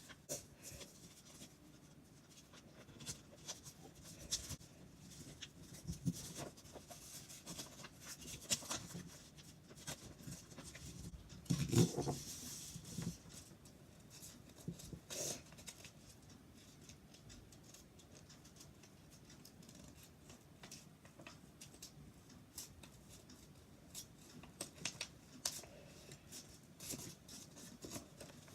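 A sheet of thick paper being folded and creased by hand: scattered rustling, crinkling and scraping, with a louder bout of handling about twelve seconds in.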